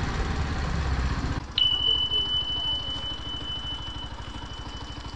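Motorcycle engine running while riding, then, after a sudden drop in level, idling with an even low pulse. A steady high-pitched electronic beep starts with a click about a second and a half in and holds for almost four seconds.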